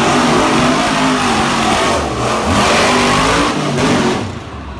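Monster truck engine revving hard, its pitch rising and falling as the truck drives across the dirt, easing off a little past four seconds in.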